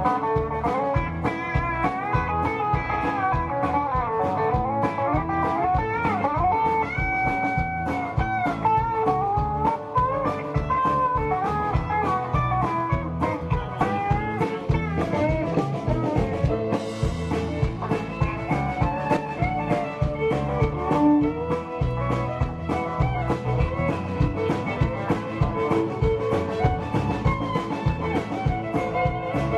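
Live country-rock band playing an instrumental break: a lead guitar solo with bending, gliding notes over a steady drum beat and bass.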